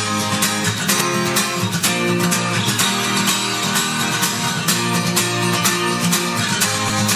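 Background music: an acoustic guitar strummed and plucked in a steady, even rhythm.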